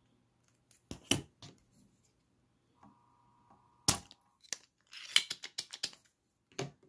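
Spring-loaded solder sucker at work on a motherboard pin: a few clicks about a second in, a single sharp snap just before four seconds as the plunger fires and pulls the molten solder off, then a quick run of clicks and rattles.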